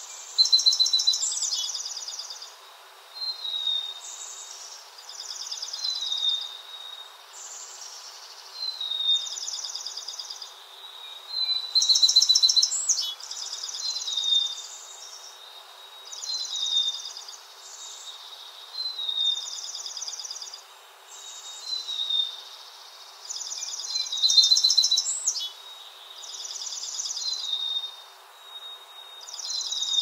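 A small streaked songbird singing a repeated song. Each phrase is a fast, buzzy, high trill mixed with short down-slurred whistles, and phrases come every two to three seconds. The loudest phrases come about a second in, around twelve seconds in, and near twenty-five seconds in.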